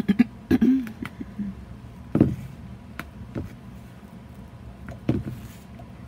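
Several dull thumps and knocks on a tabletop as a wet painted canvas and tools are handled, the loudest in the first second and just after two seconds, over a steady low hum.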